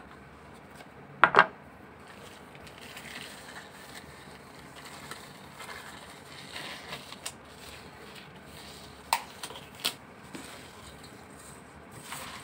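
A thin disposable plastic glove crinkling and rustling as it is pulled onto a hand. A sharp double knock comes about a second in, and two more clicks come later.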